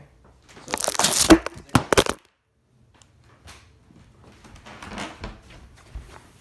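Handling noise from the recording camera being picked up and moved: loud rubbing, crackling and knocks against its microphone about a second in, then softer scraping and rustling.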